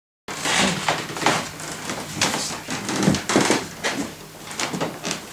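Handling noise: a busy scatter of short rustles, scrapes and light knocks as things are moved about. It starts abruptly just after a moment of dead silence.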